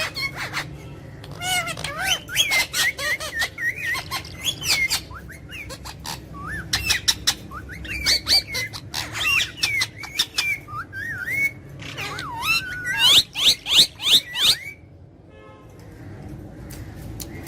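Pet parrot chattering in rapid runs of short gliding whistles, chirps and clicks, with a break of a second or so near the end.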